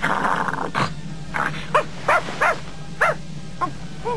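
Small terrier yapping over and over: short, high yaps that each rise and fall in pitch, about two or three a second, after a brief rush of noise at the very start.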